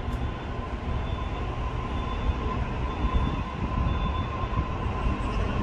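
Sydney Trains Waratah electric train moving along the platform: a steady rumble of wheels and motors with a thin, steady high whine.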